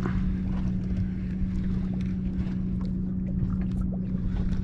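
Minn Kota electric trolling motor holding the boat on spot-lock, a steady low hum, with wind rumble on the microphone and a few faint ticks.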